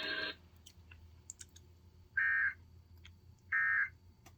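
Emergency Alert System end-of-message data bursts: short, buzzy digital tones, two of them evenly spaced about a second and a half apart, signalling the end of the alert. Just before them, a steady broadcast hiss cuts off abruptly.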